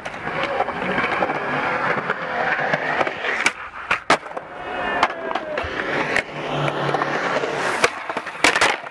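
Skateboard wheels rolling over concrete, with several sharp clacks from the tail popping and the board landing.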